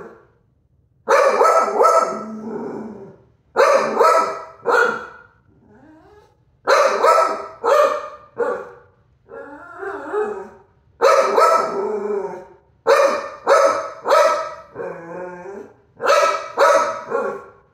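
A dog barking repeatedly in quick bursts of two or three barks, about six bursts in all, with a quieter wavering growl twice in between: jealous barking at a senior Chihuahua.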